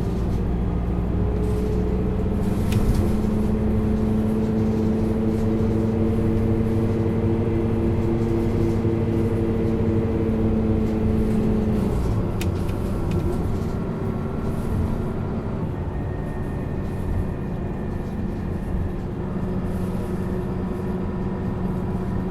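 Isuzu Erga LV290N1 bus's four-cylinder diesel engine heard from inside the bus, pulling steadily for about twelve seconds, then easing off to a quieter run.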